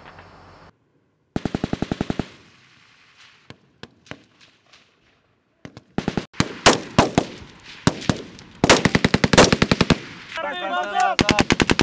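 Small-arms fire from a live-fire squad attack: rapid bursts of automatic fire mixed with single rifle shots, sparse at first and dense through the second half. A voice calls out briefly near the end.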